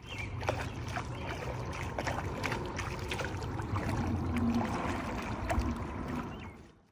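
Double-bladed kayak paddle dipping and splashing in river water with each stroke, over a steady low rumble of outdoor noise; it fades out near the end.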